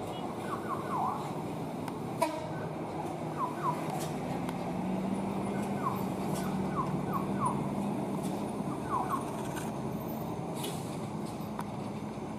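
Heavy truck and motorcycle engines running past on a steep climb, with a steady engine drone that strengthens through the middle. Short high falling chirps come now and then, and there is one sharp click about two seconds in.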